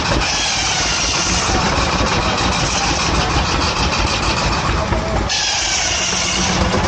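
Old John Deere two-cylinder tractor engine running steadily as the tractor drives past pulling a loaded wagon.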